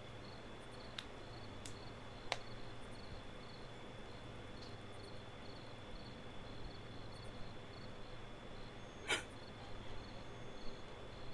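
Quiet room tone with crickets chirping faintly and steadily in a repeating high pulse. A few short faint clicks, the sharpest about nine seconds in.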